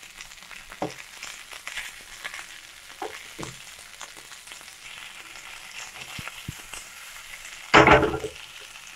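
Drumstick (moringa pod) pieces frying in spice paste in a non-stick frying pan, sizzling softly while a wooden spatula stirs and scrapes them with scattered light knocks. About eight seconds in there is a louder, short burst of spatula scraping against the pan.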